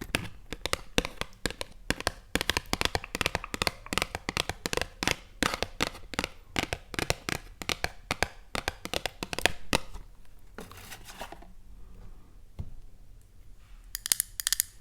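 Close-miked ASMR tapping: rapid taps and clicks on objects, several a second, stopping about ten seconds in with a brief soft rustle, then starting again near the end.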